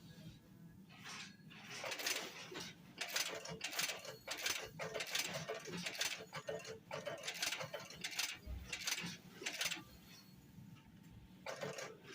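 Automatic eyelet buttonhole sewing machine running: a mechanical clatter in repeated short bursts over a faint steady hum. It goes quieter for a moment near the start and again near the end.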